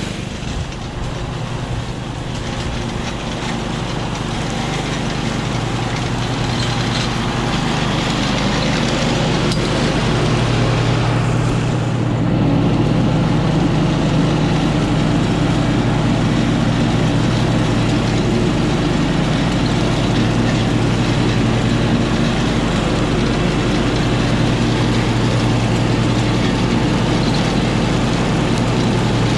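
Husqvarna riding lawn mower engine running steadily while it mows tall rough grass and weeds. It grows louder over the first dozen seconds and, after a brief break about twelve seconds in, is heard up close from on the mower.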